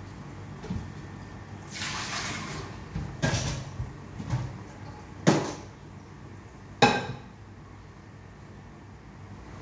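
Kitchenware clattering at a sink: a short rattling clatter, then several sharp knocks of pots and dishes being handled, the last two loudest, with a brief metallic ring.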